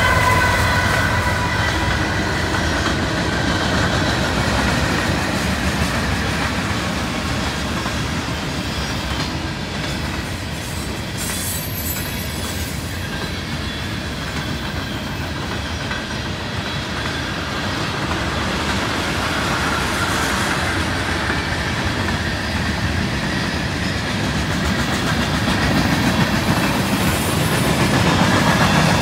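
CSX freight train rolling past at speed: a diesel locomotive goes by at the start, with a few steady tones that fade within the first two seconds, then a long string of freight cars with continuous wheel-on-rail rolling noise. A brief high screech comes about eleven to twelve seconds in.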